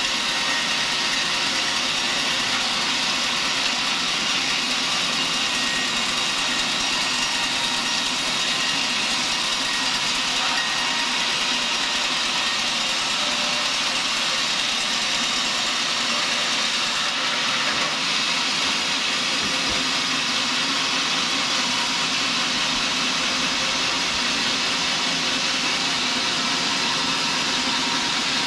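Band sawmill running with its blade cutting lengthwise through a large mahogany log: a steady hiss of the cut over the machine's drone.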